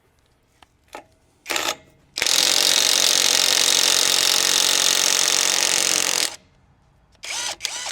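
Impact wrench running for about four seconds to break loose a vehicle's wheel nut, after a brief blip of the trigger a moment before.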